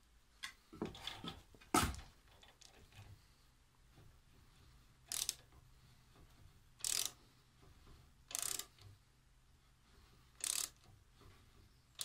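A hand socket ratchet clicking in short bursts on its return strokes, about every one and a half to two seconds, as a nut on a lathe carriage's gear shaft is turned. A few metal clicks and one sharp knock come in the first two seconds.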